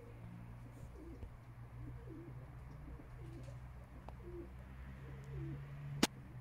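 Pigeons or doves cooing, a string of short, soft coos about once a second over a steady low hum. A single sharp click about six seconds in.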